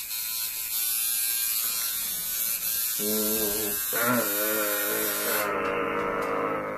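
Coil tattoo machine buzzing steadily. It gets louder about three seconds in, and its pitch wavers slightly as the needle works.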